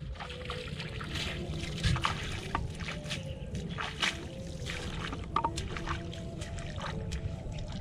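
Footsteps splashing and sloshing through shallow water in wet grass, an uneven run of splashes.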